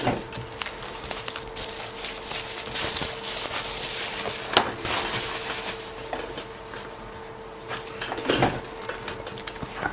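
Clear plastic coin-album pages, holding coins in cardboard holders, crinkling and rustling as they are handled and turned, with small clicks and one sharper click about four and a half seconds in.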